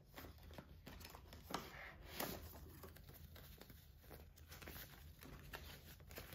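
Faint rustling and flicking of paper banknotes as a stack of bills is pulled from a binder cash envelope and counted by hand.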